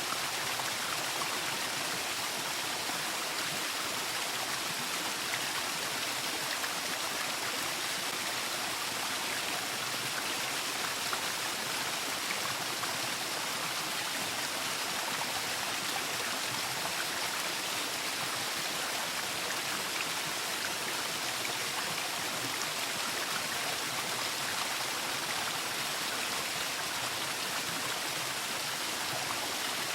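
Waterfall: water falling and rushing, a steady even hiss with no changes.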